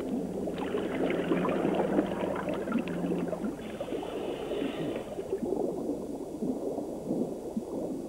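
Underwater bubbling and gurgling water, with a low steady hum for the first three and a half seconds.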